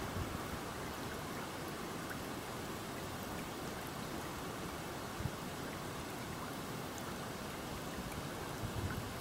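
Small spring-fed headwater creek flowing shallow over stones, a steady even rush of water, with a brief low bump a little past halfway.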